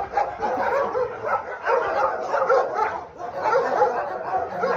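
Many dogs in kennel runs barking at once, their barks overlapping without a break.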